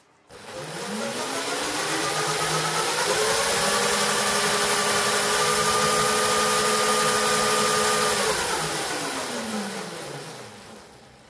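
Brushless hub motor (Yuma 17-inch 2000 W 72 V) spinning up under throttle. It whines, rising in pitch over about three seconds, holds steady, then falls in pitch and fades as the wheel coasts down. A hiss runs under the whine.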